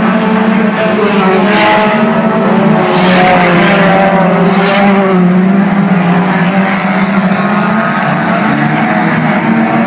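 Several dirt-track race cars' engines running at speed around the oval, a loud steady drone that swells a few times in the first half as cars go by.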